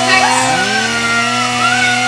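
Chainsaw engine revving up about half a second in and then holding at high speed over a steady low idle hum, with a thin wavering higher tone above it.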